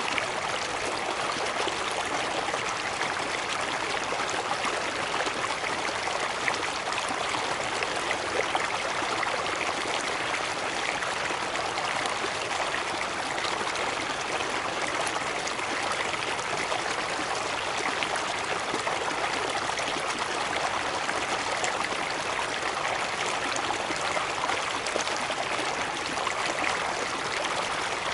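Cascading water: a steady, even rush with no let-up and no pauses.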